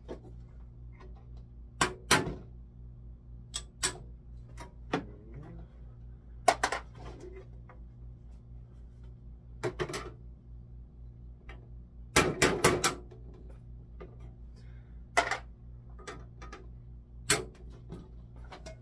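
Scattered clicks, taps and clatters of small metal tools and parts on a workbench as the screws are worked out of a handsaw's wooden handle, the loudest a quick run of knocks about two-thirds of the way through. A steady low hum sits underneath.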